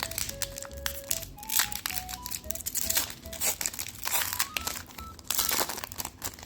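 Foil booster pack wrapper crinkling and crackling as it is handled and torn open, over a light background music melody.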